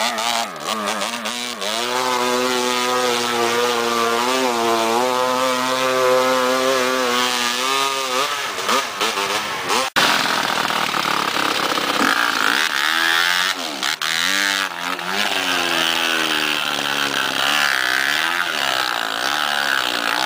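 Dirt bike engines revving hard and unevenly, the pitch rising and falling with the throttle as the bikes push through a muddy river, with water splashing. The sound breaks off for an instant about halfway.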